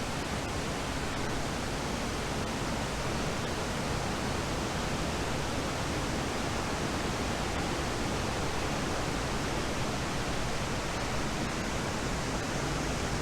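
Shohola Falls in flood after heavy rain: a steady, even rush of falling water.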